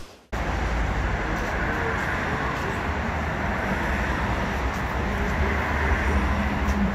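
Steady rumble and hiss of a CAF Urbos 100 tram in service, starting abruptly after a moment of silence; a steady low hum joins about five and a half seconds in.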